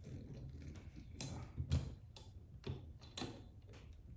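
Irregular clicks and knocks from the parts of a desktop microphone stand being handled and adjusted, about five in all, the sharpest a little under two seconds in.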